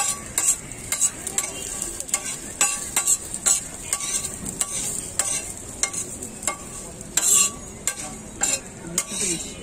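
A metal spatula scrapes and clanks against a large flat metal griddle, about two strokes a second, while beef tripe fries on it with a steady sizzle. The loudest, longest scrape comes about seven seconds in.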